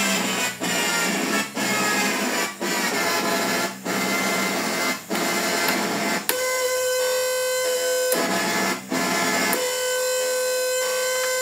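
Modified Casio PT-31 mini keyboard making harsh electronic noise: first a dense, grainy texture that drops out briefly about once a second, then, about six seconds in, a steady held tone with overtones that cuts out for a moment and comes back.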